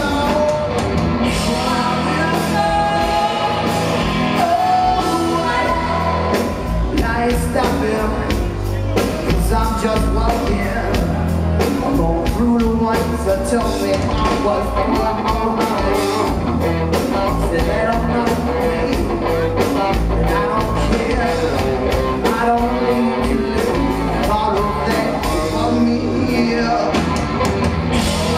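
Rock band playing live: electric guitar, bass guitar and drums with a lead vocal, a steady full band sound.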